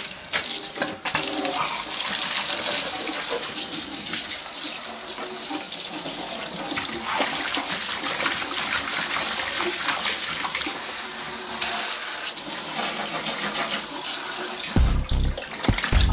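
Water running from a hose into a stainless steel sink, splashing over fish fillets as they are rinsed by hand. Near the end, loud music comes in.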